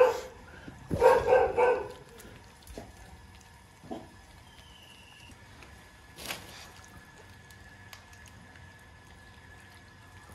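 Dog barking: one bark, then a quick run of three barks about a second in, after which only faint scattered sounds remain.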